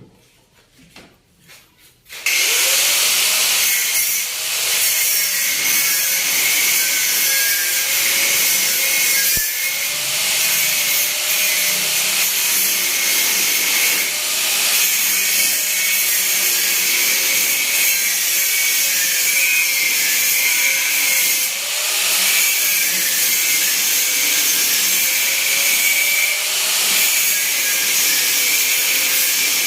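A handheld power tool starts about two seconds in and runs continuously under load, its motor pitch wavering as it works against the material.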